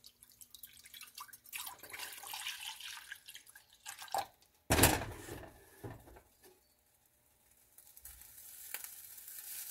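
Milk poured in a stream into a stainless steel saucepan, splashing and frothing as the pan fills. A single loud knock comes just under five seconds in, and a faint steady hiss builds near the end.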